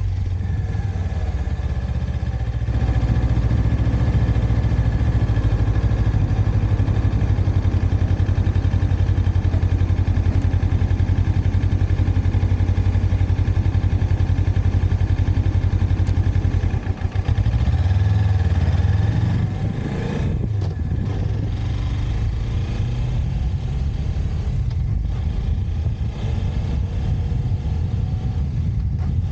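Motorcycle engine running under way with road and wind noise. The engine note holds steady, stutters briefly about two-thirds of the way through, then settles lower and quieter.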